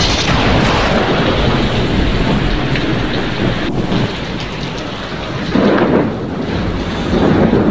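Heavy tropical rain pouring down on a street, with thunder rumbling through it. The rumble swells louder about two-thirds of the way in and again near the end.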